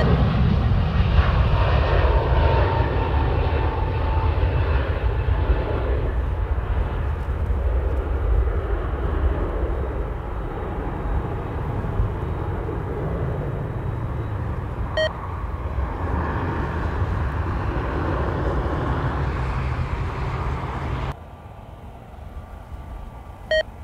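Airbus A320neo jet engines at take-off power, a steady rumble that slowly fades as the aircraft climbs away. About 21 seconds in it cuts off suddenly to a much quieter background, with two very short beeps, one before the cut and one after.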